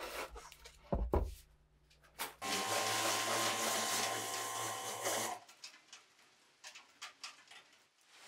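A Kärcher pressure washer running and spraying for about three seconds, its motor giving a steady hum under the hiss of the jet, starting and stopping abruptly. Before it, two knocks from the heavy cast-iron sewing machine body being handled on a wooden bench.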